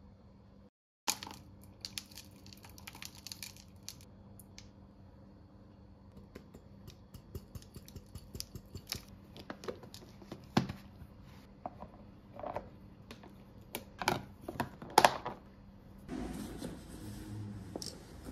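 Small clicks, taps and rustles of plastic food containers and a spoon being handled on a kitchen counter while packing a lunch box, with a few sharper clicks. About two seconds before the end, a steadier background hiss with rustling of a bag takes over.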